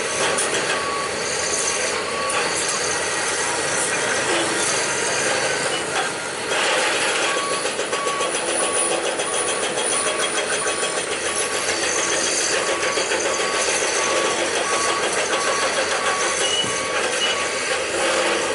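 Large hydraulic excavator working, its diesel engine running under load, with a warning alarm beeping about twice a second in stretches.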